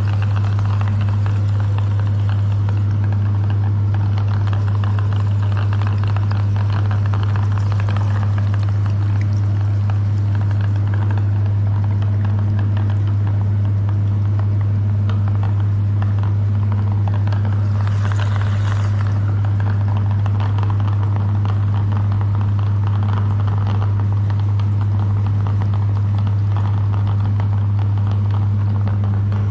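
Electric meat grinder running steadily, its motor giving a loud, constant low hum with a rougher noise above it and a brief hiss about two-thirds of the way through.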